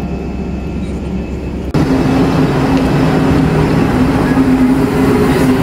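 Background music for the first second and a half, then a sudden switch to a steady engine and machinery hum on a ship's deck: a low drone over a rumbling noise.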